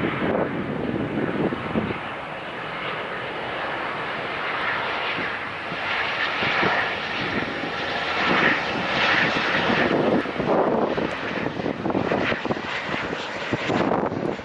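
An SAS Boeing 737-800's two CFM56-7B26 turbofan engines on final approach, their jet noise growing louder as the airliner passes close by and loudest a little past the middle. Gusts of wind buffet the microphone at the start and again near the end.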